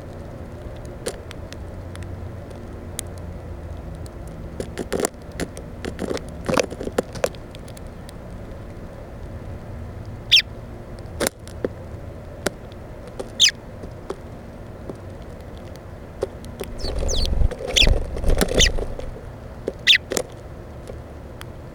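Small birds feeding at a seed feeder, pecking and scratching on the Plexiglas right beside the microphone: irregular sharp taps and clicks, busiest a few seconds before the end.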